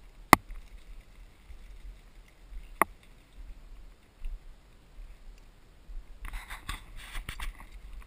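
Two sharp clicks about two and a half seconds apart, then a couple of seconds of rustling and scraping with further clicks near the end, over a low wind-like rumble.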